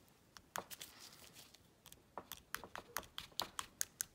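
Small metal nail tool clicking against a freshly cured gel-coated nail tip, testing how hard the gel has set: a run of sharp clicks that comes faster about two seconds in.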